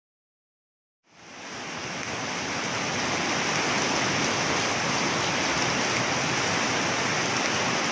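Muddy floodwater rushing, a steady dense rush of water that fades in about a second in.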